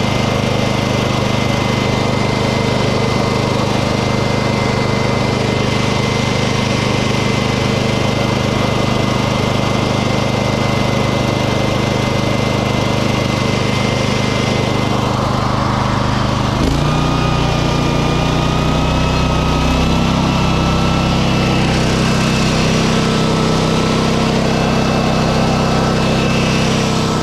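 An engine running steadily while it charges a truck's dead batteries through hooked-up cables. About two-thirds of the way through its sound changes, running heavier and deeper, with a thin whine above it that moves higher.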